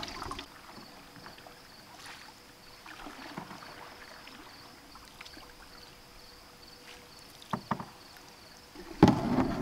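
Canoe being paddled on calm water: quiet paddle strokes and water movement, with two sharp knocks about seven and a half seconds in and a sudden louder burst just before the end.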